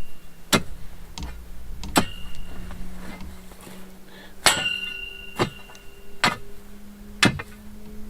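A metal digging tool striking hard, stony ground: about seven sharp blows at an uneven pace, roughly one every second or so, several leaving a brief metallic ring.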